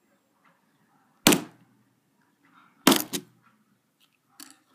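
Two heavy thuds about a second and a half apart as a broken iPod is struck hard against a wooden surface, each blow with a short ring after it.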